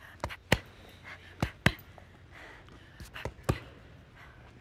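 Fists punching hanging punching bags: about seven sharp thuds, several in quick pairs.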